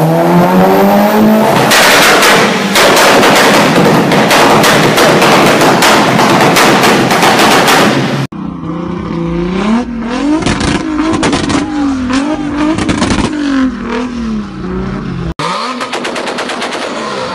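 Mitsubishi Lancer Evolution's turbocharged four-cylinder under full throttle on a dyno, its exhaust firing a rapid machine-gun string of bangs over the engine's rising revs. After a cut about eight seconds in, an engine revs up and down with crackles from the exhaust. Near the end, a Toyota Supra's exhaust pops rapidly.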